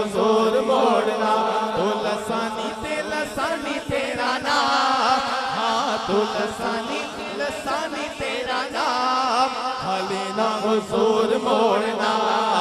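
A male voice singing a Punjabi naat into a microphone over a sound system, in a melismatic line with other voices chanting beneath it.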